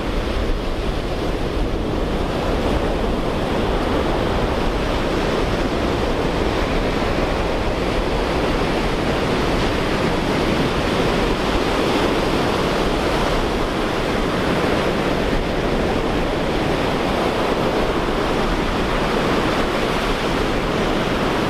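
Ocean surf breaking and washing up a sandy beach, a steady rush of waves without a break, with wind rumbling on the microphone.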